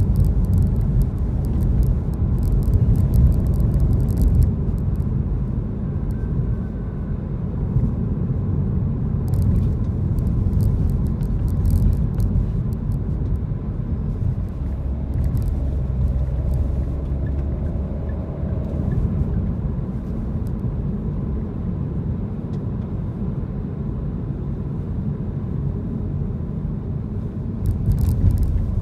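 Steady low rumble of a car driving in city traffic, heard from inside the cabin: engine and tyre noise with no sharp events. Faint clicks come and go now and then.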